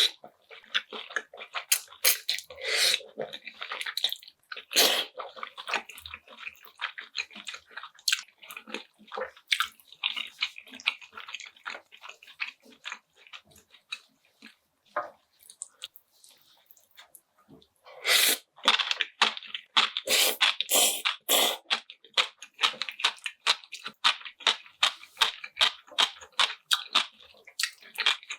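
Close-miked eating sounds: wet chewing, lip smacks and mouth clicks, with a denser, louder run of mouth sounds about two-thirds of the way through.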